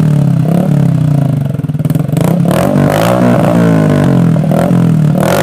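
Motorcycle engine running through an aftermarket SC Project slip-on exhaust with no baffle. It idles steadily, then is revved up and down in repeated blips from about two seconds in.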